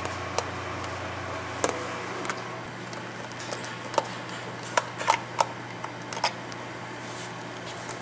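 Screwdriver tightening the screw on a compressor's plastic pressure-switch cover, with scattered sharp clicks and taps, most of them about four to six and a half seconds in, over a steady low hum.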